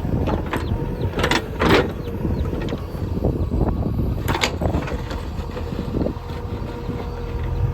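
JCB 3DX Xtra backhoe loader's diesel engine running steadily while it works, with sharp knocks and scrapes of its bucket against stones, the loudest a little over a second in and again about four seconds in.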